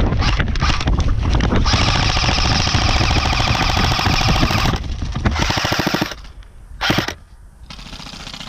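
Airsoft electric guns firing on full auto: rapid rattling bursts, the longest lasting about three seconds, then a shorter burst and a brief last one about seven seconds in.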